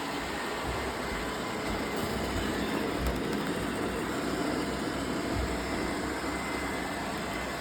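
Roomba robot vacuums running: a steady mechanical noise with a low rumble underneath.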